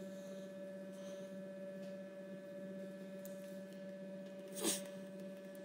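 Steady low electrical hum with a fainter higher whine held under it, and a brief soft noise about four and a half seconds in.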